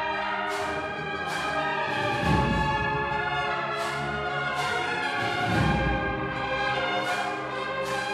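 Bugle-and-drum band (banda de cornetas y tambores) playing a Spanish Holy Week processional march: held brass chords from the cornetas over percussion strokes about once a second, with a few heavy low drum beats.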